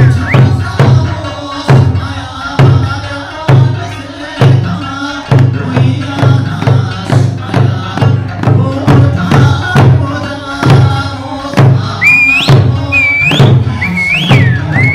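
Eisa taiko drums struck in a steady beat that quickens to about two and a half strokes a second, over lively kachāshī music. Shrill rising whistles cut in several times near the end.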